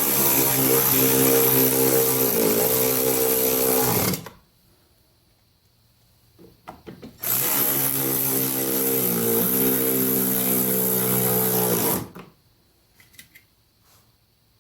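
Cordless drill running in two spells of about four to five seconds each, a steady motor whine whose pitch dips briefly partway through each spell as it meets load.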